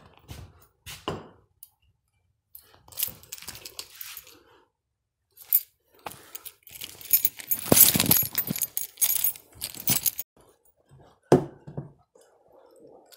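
Handling noise: scattered clicks, rustling and light metallic clinks as the camera is moved about by hand, thickest in the middle stretch, with one sharp click near the end.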